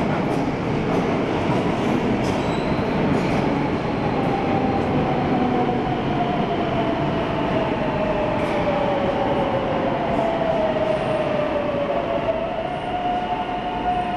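Madrid Metro train pulling into an underground station and braking to a stop: a loud rush of wheels and running gear, with a whine that falls steadily in pitch as it slows. Near the end the whine gives way to a steady tone.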